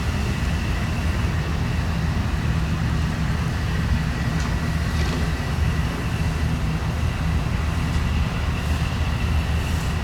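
Boat engine idling: a steady low rumble with a faint, steady high-pitched whine over it.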